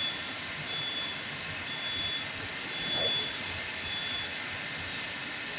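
Moscow Metro train standing at the platform with a steady hum, while a short high beep repeats about once a second; the doors slide shut with a brief thud about three seconds in.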